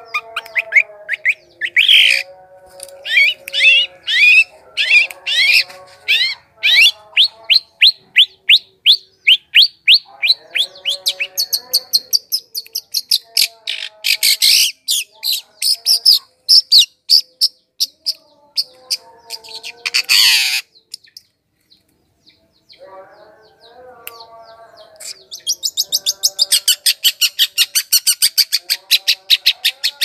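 Long-tailed shrike (cendet) song: rapid strings of sharp, sweeping high notes over lower warbling notes. It falls almost quiet for about two seconds past two-thirds of the way through, then ends in a dense, very fast run of notes.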